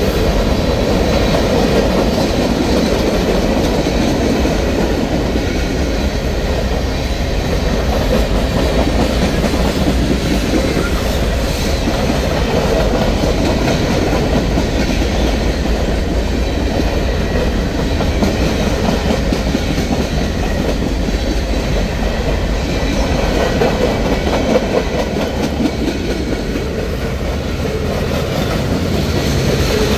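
Freight train's boxcars and tank cars rolling past, a steady rumble with the wheels clicking over the rail joints.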